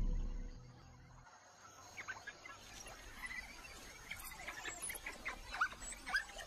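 Music fading out in the first second. Then faint, high chirps and twitters, several a second, from animals in the bush.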